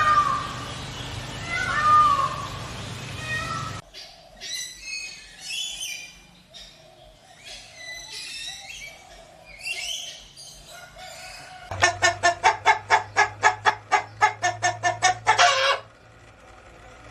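Chickens calling across a few edited clips, ending in a rapid run of clucks, about four a second, that stops suddenly a little before the end.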